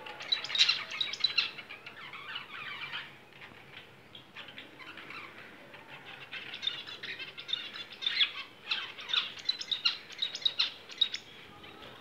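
Budgerigars and zebra finches chirping and chattering in a busy overlapping flurry. The calls are thickest in the first few seconds, thin out, then pick up again from about halfway to near the end.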